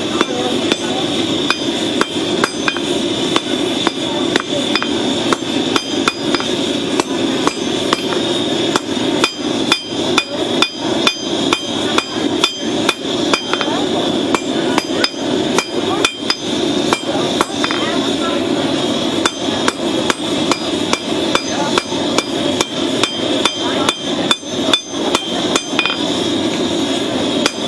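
Hand hammer striking a red-hot horseshoe rasp on an anvil, forging it into a blade: a long run of blows, about two to three a second, each with a short metallic ring. A steady rushing noise runs underneath.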